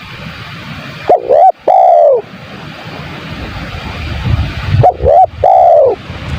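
Spotted dove cooing twice, about three and a half seconds apart. Each call is two quick short notes followed by a longer arched coo, over a steady background hiss.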